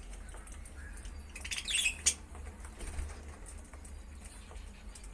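Budgerigars chirping, with a brief louder burst of chirps and wing flutter about a second and a half in.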